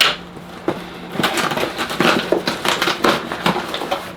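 Cardboard box and its packing being handled and rummaged through: a sharp knock at the start, then from about a second in a run of irregular crinkling and rustling.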